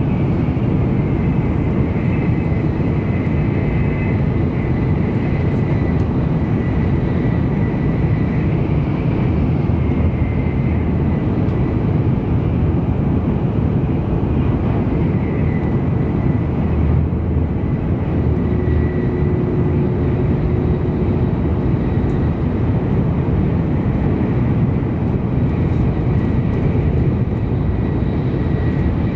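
Cabin running noise of an N700 series Shinkansen travelling at speed: a steady rumble with a faint high whine over it.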